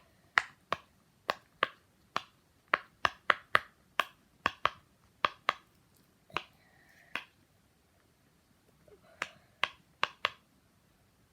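Silicone pop-it fidget toy having its bubbles pushed through one after another on its louder side: about twenty sharp pops at an uneven pace, with a pause of a couple of seconds before a last handful.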